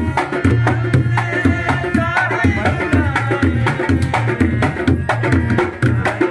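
Live folk music on harmonium and hand drum, with a steady, fast beat of drum strokes under the harmonium melody.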